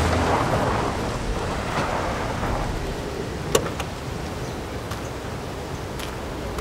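A car pulling up, its engine and tyres a steady rumble that eases down, with a sharp click about three and a half seconds in.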